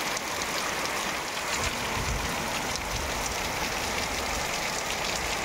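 Heavy rain falling in a steady downpour: an even hiss with many fine drop hits.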